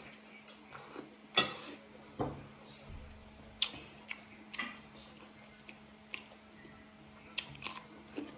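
Eating at a table: scattered sharp clicks and short crunches from a metal fork on a ceramic plate and from bites of fresh cucumber, the loudest click about a second and a half in and a quick cluster of crunches near the end.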